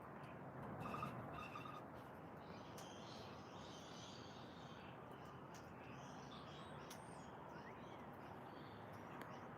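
Faint bird calls and chirps in a few scattered clusters over a steady background hiss of outdoor ambience.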